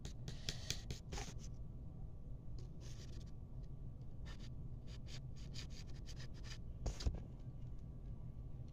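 Light scratching and rubbing from hands handling things, in short scattered strokes, with one louder knock about seven seconds in.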